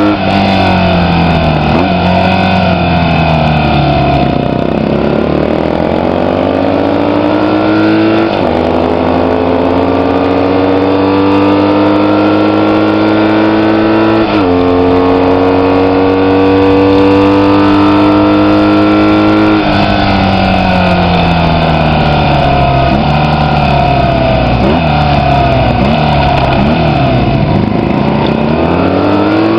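Vintage racing motorcycle's engine heard from on board at racing speed. The revs fall over the first few seconds, climb through two gear changes, then drop back from about twenty seconds in as it slows, and pick up again near the end.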